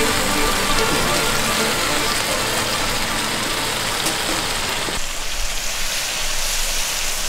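Pork belly and vegetables sizzling steadily on a hot round griddle pan.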